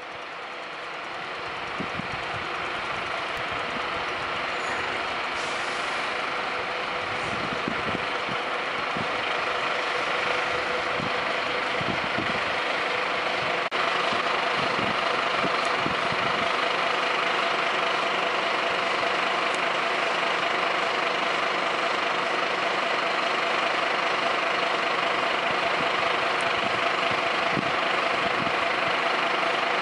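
Diesel engines of parked fire engines running steadily. The sound grows louder over the first ten seconds or so, then holds level.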